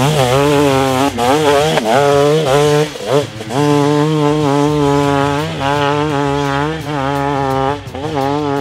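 KTM 250 XC-W two-stroke dirt bike engine revving up and down under load on a climb. Its pitch rises and falls, with brief dips in the first three seconds as the throttle comes off. Background music plays underneath.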